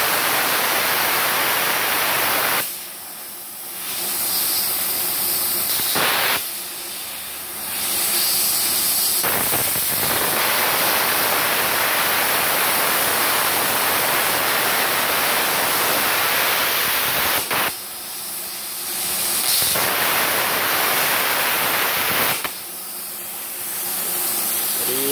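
MultiPro CUT65 G-SB inverter plasma cutter, set to 65 amps, cutting iron plate: a loud, steady hiss of the arc and compressed air. Four times it drops to a softer hiss for a second or two before the full hiss returns.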